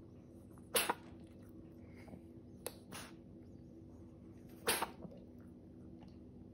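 Domestic cat sneezing: three short, sharp sneezes, about a second in, again about two seconds later, and once more near the five-second mark.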